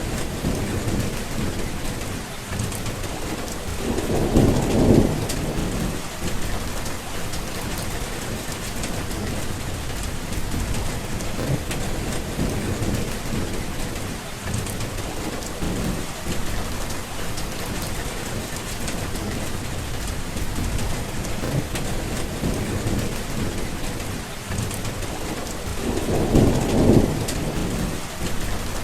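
Steady heavy rain falling, with thunder rumbling twice: once about four seconds in and again near the end.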